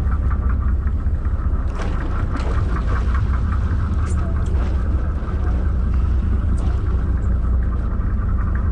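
Steady low drone of a sportfishing boat's engine, running evenly, with a few faint clicks over it.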